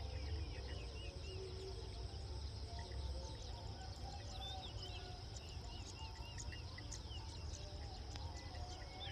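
Countryside ambience: a steady high drone of crickets, with birds calling over it, including two runs of four or five short, arching chirps, one near the start and one about halfway through. A constant low rumble runs underneath.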